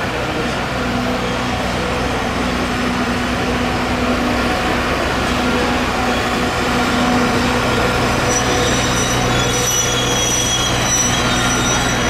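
Alishan Forest Railway DL49 diesel locomotive's engine running steadily as the locomotive rolls slowly in with its narrow-gauge train. From about eight seconds in, the wheels squeal thinly.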